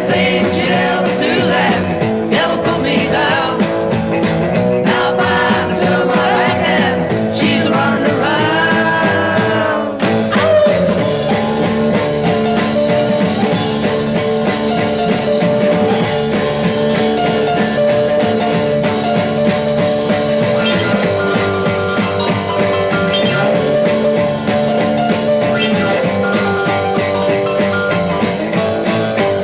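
1960s beat-group rock recording: a singing voice over band backing for the first ten seconds or so, then the band plays on without the voice.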